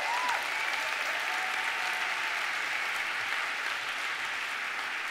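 An audience applauding steadily, tapering off slightly toward the end.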